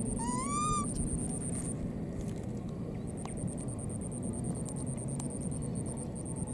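A baby macaque gives one short rising squeal near the start. A steady high, thin whine runs under it, dropping out for about a second early on, over a constant outdoor background hiss.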